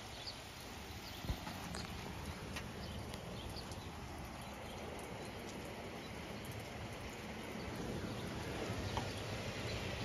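Steady rain falling, an even hiss with scattered light ticks of drops and a single thump about a second in.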